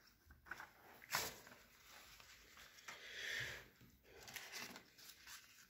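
Faint rustling of paper as a glossy brochure is leafed through and a folded instruction leaflet is handled, with a sharper rustle about a second in.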